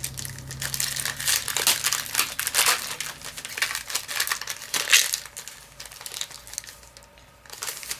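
Foil trading-card booster pack wrappers crinkling and being torn open: a dense, irregular crackle that thins out near the end.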